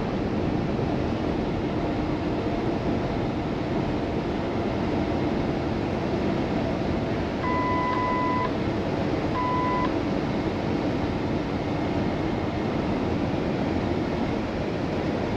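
Steady in-cab running noise of a Kenworth T680 semi truck with its PACCAR MX-13 diesel engine, at road speed. A little past halfway come two electronic beeps, the first about a second long and the second about half a second.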